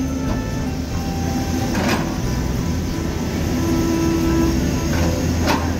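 Sunward SWE215E tracked excavator's diesel engine running steadily under digging load, with a brief higher whine about four seconds in. Two short scraping knocks sound, about two seconds in and near the end, as the bucket works the soil.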